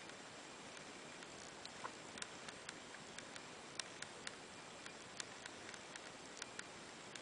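Quiet room tone: a faint steady hiss with scattered small clicks and ticks at irregular intervals, more of them after about two seconds in.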